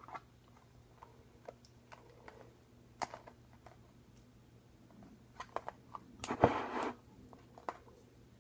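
Light handling noises from a plastic glue bottle being squeezed and emptied into a bowl: scattered small clicks and taps, with a brief louder rustle about six seconds in, over a faint steady low hum.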